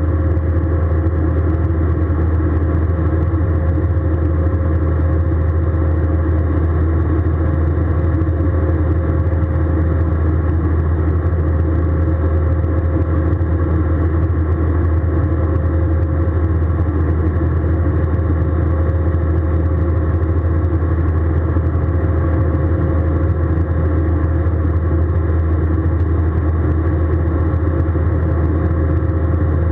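Airbus A320 cabin noise in flight: the steady drone of the jet engines and airflow, a deep hum with a faint steady whine above it, unchanging throughout.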